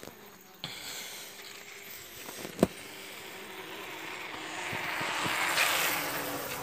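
A road vehicle passing by, its noise swelling to a peak near the end and then easing off, with a single sharp click about two and a half seconds in.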